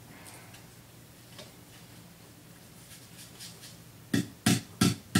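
Faint rustling, then four sharp knocks in quick succession near the end: a potted mum's nursery pot being struck to loosen the root ball so the plant will come out.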